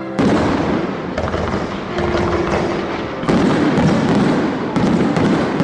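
Aerial fireworks shells bursting: about five sharp booms, roughly a second apart, with dense crackling between them.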